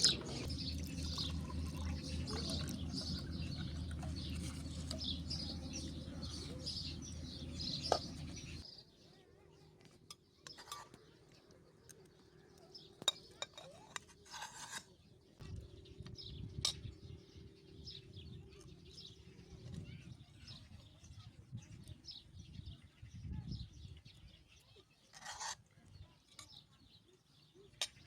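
Small birds chirping rapidly over a steady low rumble for the first eight seconds or so, then it suddenly drops much quieter, with scattered clicks and clinks and an occasional chirp.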